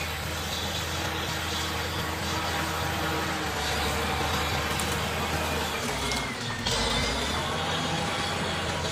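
Caterpillar D7G bulldozer's diesel engine running steadily. About six seconds in its note briefly dips and then comes back a little louder.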